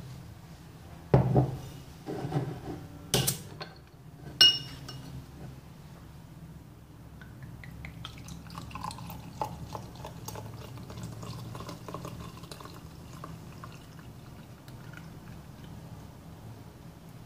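A few sharp clicks and knocks in the first five seconds, one of them with a short glassy ring, as a swing-top beer bottle is handled. Then, from about halfway through, homemade rice beer is poured steadily from the bottle into a wine glass.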